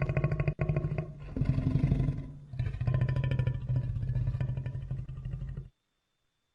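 Creature sound effect layered from animal and film-monster roars: a deep, rattling growl-roar in several phrases with brief breaks, which cuts off suddenly near the end.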